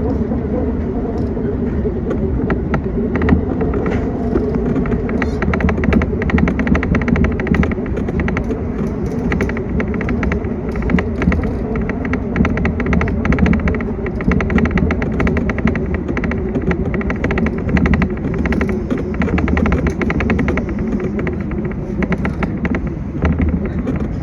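Interior running noise of a JR West 227 series electric train under way: a steady rumble of wheels on rail with a constant hum, and many quick clicks and rattles throughout, thickest in the middle.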